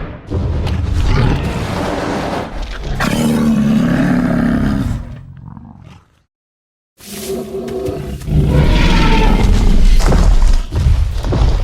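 Tyrannosaurus rex roar sound effects: two long, loud roars with a deep pitched core, separated by about a second of silence halfway through.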